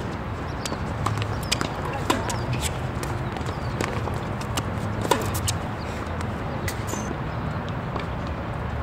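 Sharp, irregular knocks of tennis balls being struck and bouncing, over steady background noise and some faint voices.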